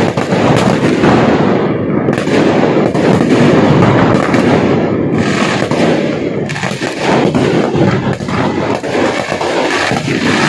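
Many fireworks going off at once: a dense, unbroken barrage of overlapping bangs and aerial shell bursts.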